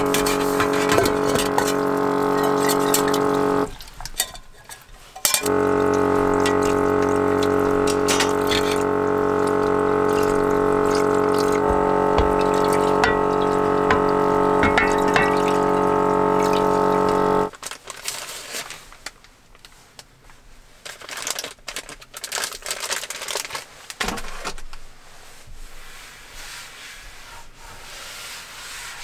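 Water running from a camper's small sink tap into a metal basin, with a steady pitched hum from the water pump. It runs for about three seconds, pauses briefly, then runs again for about twelve seconds and cuts off. Light clatter of dishes and handling follows.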